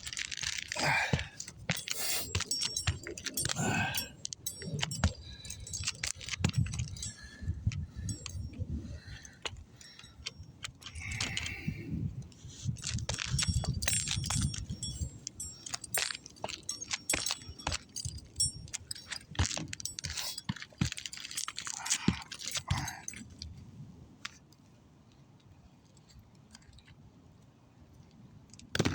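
Loose roofing nails jingling and clinking as they are handled, with scuffing and scattered sharp taps as the nails are worked back into the shingles.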